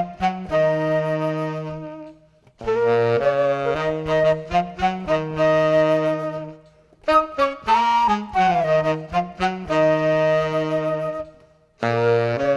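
Background music: a solo wind instrument playing melodic phrases of long held notes, with short breaks between phrases about every four to five seconds.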